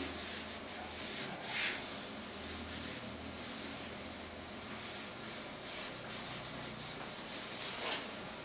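Handheld whiteboard duster rubbing across a whiteboard in soft, repeated strokes, wiping off marker writing.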